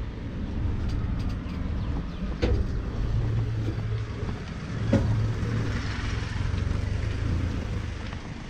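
Pickup-truck shared taxi (songthaew) on the move, heard from aboard: steady low engine and road rumble, with a couple of sharp knocks about two and a half and five seconds in.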